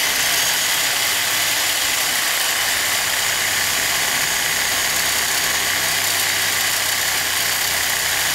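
Corded 8.5-amp Skil power saw with a bimetal blade running steadily while cutting into the steel shell of a sealed air-conditioner compressor, a harsh, even metal-cutting noise.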